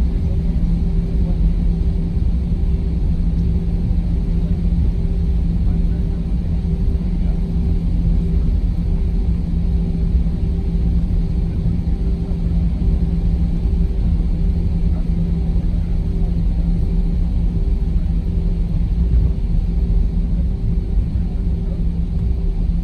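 Steady cabin rumble of an Airbus A320 taxiing, its engines at low power, with a constant low hum throughout.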